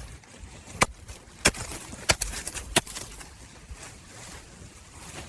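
Four sharp knocks on something hard, evenly spaced about two-thirds of a second apart, then stopping about three seconds in.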